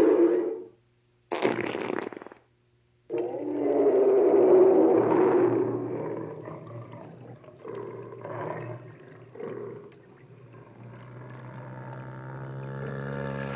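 A run of Star Wars creature sound effects: a growl cutting off just after the start, a short burst after a gap, then a long rumbling growl, several short grunting calls, and near the end a low pitched drone that slowly swells.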